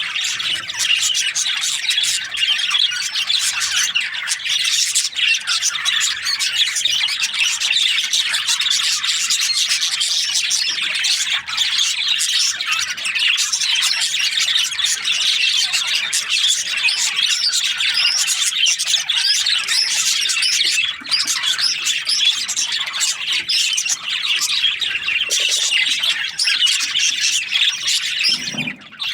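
A flock of budgerigars chattering and chirping continuously, many birds calling over one another, with a brief lull just before the end.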